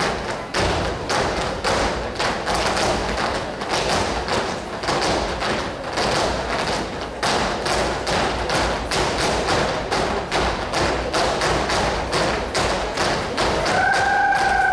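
An ensemble of tap dancers' shoes striking a wooden stage in unison: a fast, steady rhythm of heel and toe taps, a few strikes a second. Near the end a held note comes in over the taps, rising slightly.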